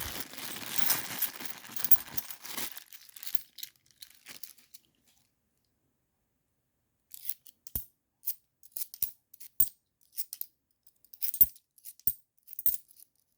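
Crinkling of a plastic coin bag for the first few seconds, then a near-silent pause, then scattered sharp clicks of 50p coins being handled and set down against each other.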